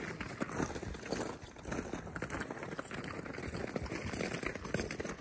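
Footsteps crunching on the granular crust of glacier ice, a dense run of short, irregular crunches.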